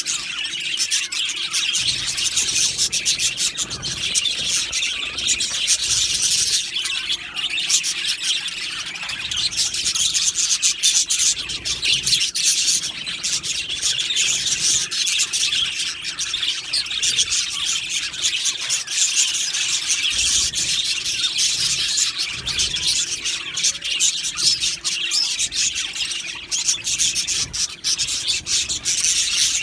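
A flock of budgerigars chattering and chirping together, a dense, continuous warble of many overlapping high calls.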